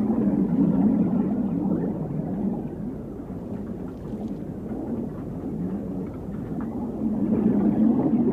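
Underwater rumble of a scuba diver's exhaled bubbles, swelling at the start and again about seven seconds in, like two breaths out.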